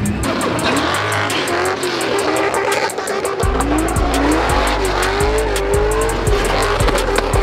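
Drift car engines revving up and down at high revs with tyres squealing, over background music with a steady ticking beat. A heavy bass line comes in about three and a half seconds in.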